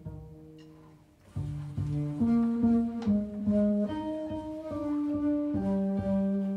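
Live jazz: an upright double bass played pizzicato, with a held note fading out before a run of sustained melody notes starts about a second and a half in.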